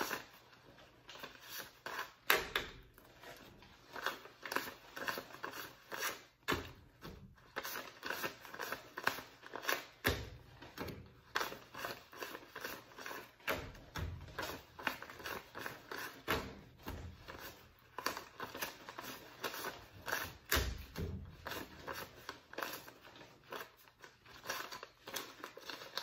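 Paper banknotes rustling and flicking as stacks of dollar bills are counted by hand, a steady run of short crinkly flicks. A few louder soft knocks come in between.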